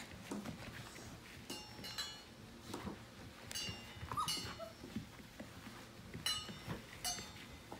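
Five-week-old Portuguese Water Dog puppies play-fighting, giving short high-pitched squeals and yips several times.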